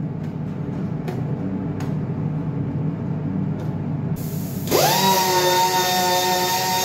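A steady low fan hum, then about four and a half seconds in a small handheld power tool starts up: a hiss and a whine that rises quickly and then holds steady.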